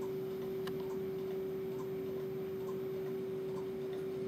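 Steady electrical hum held on a single low tone, with faint ticks about once a second.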